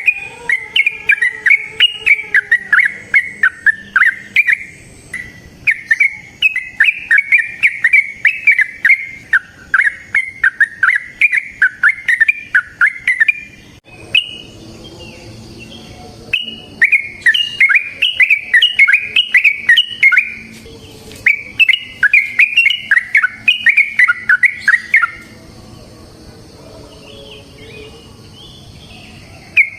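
Yellow-vented bulbul (trucukan) singing its long, rapid song: runs of quick, bubbling notes in several phrases of a few seconds each, with short breaks between them. Only faint calls are left in the last few seconds.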